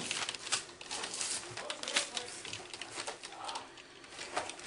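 Scattered light clicks and rustling, with faint indistinct voices.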